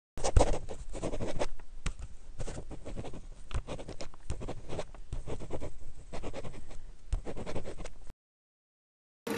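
Pen writing on paper: quick scratchy strokes and small taps, stopping abruptly about a second before the end into dead silence.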